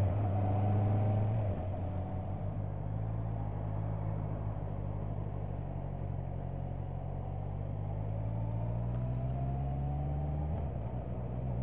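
Motorcycle engine running as the bike rides through a roundabout. The engine note drops back about a second and a half in as the throttle eases, then rises gradually near the end as the bike accelerates.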